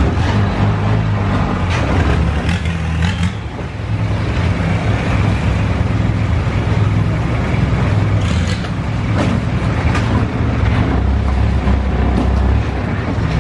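An engine running steadily with a low hum, with a few short knocks over it.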